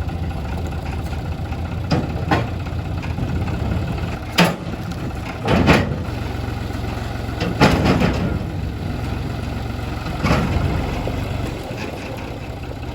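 Tractor engine idling steadily, with several short, louder sounds over it at irregular intervals.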